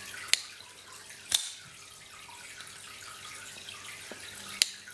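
WE Knife 708 folding karambit's blade being flicked open and shut by its flipper tab, giving three sharp metallic clicks: one near the start, one about a second later, and one near the end.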